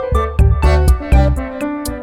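Background music with a steady beat: bass, drums and keyboard-like notes.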